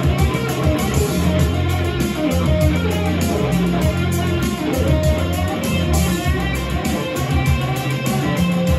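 Improvised solo on a Stratocaster-style electric guitar, played over a backing track with a bass line and a steady beat.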